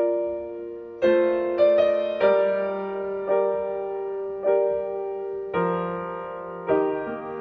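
Slow, gentle solo piano music. Chords are struck about once a second and each rings and fades, with a short run of quicker notes about a second in.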